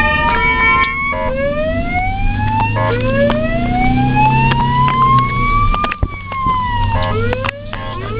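Ambulance siren wailing in slow rising sweeps, each climbing for two to three seconds, with one long fall about six seconds in and quicker, shorter rises near the end.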